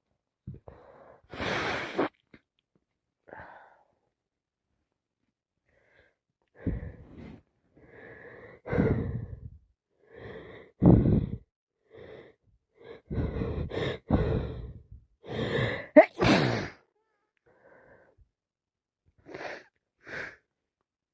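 A person with a cold sneezing repeatedly, with wheezy breaths between the sneezes. There is one strong sneeze about two seconds in, then a long run of sneezes and breaths through the middle, loudest near the end of that run, and two small ones near the end.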